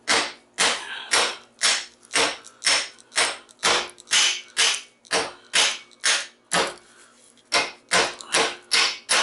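Hammer blows on metal, about two a second, driving a copper coil off a transformer's steel laminated core held in a vise; each strike rings briefly. The blows pause for about a second near the end, then resume a little quicker.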